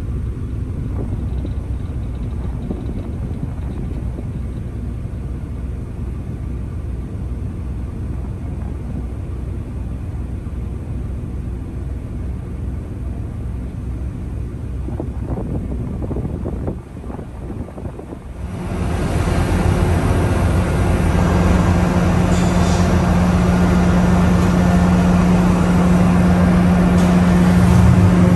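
The car ferry Himeshima Maru's engines run as it comes alongside the berth, a low steady rumble. About eighteen seconds in, it cuts to a louder hum with a strong steady low drone, echoing inside the enclosed car deck.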